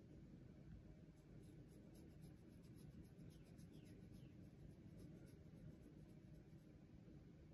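Fingernails scratching a cat's fur: a faint, quick run of scratchy strokes that starts about a second in and stops near the end.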